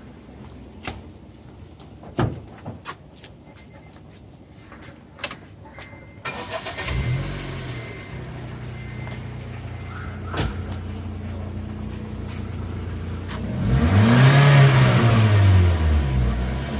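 A few clicks and knocks, then the Honda City's 1.5-litre naturally aspirated four-cylinder petrol engine cranks and starts about six seconds in and settles to a steady idle. Near the end it is revved once, rising and falling back to idle, the loudest moment.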